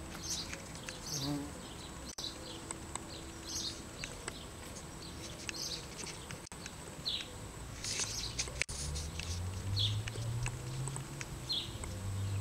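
Small birds chirping in short, scattered calls, and from about eight seconds in the low buzz of a bumblebee working a rose of Sharon flower.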